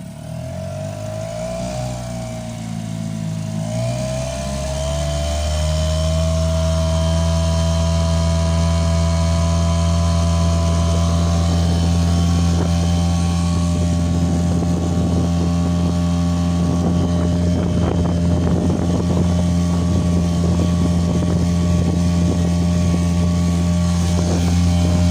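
A Sea Pro 5 hp outboard motor running a small inflatable boat. Its pitch wavers as the throttle opens over the first few seconds, then it settles into a steady, loud high-revs drone as the boat planes. Partway through, a crackling rush, likely water against the hull, lies over the engine for several seconds.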